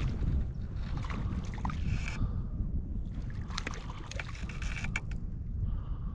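Water splashing in two spells while a hooked trout is played and brought in, over a steady low rumble of wind on the microphone.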